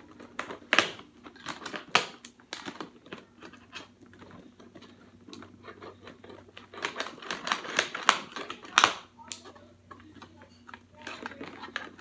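Irregular sharp plastic clicks and snips from hands and safety scissors working the packaging off a Nerf blaster, thickest in the second half.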